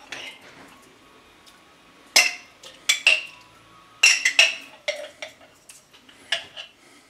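A metal spoon clinking and scraping against a glass jar as apricot jam is scooped out into a stainless steel saucepan: irregular sharp clinks, a quick cluster of them about four seconds in.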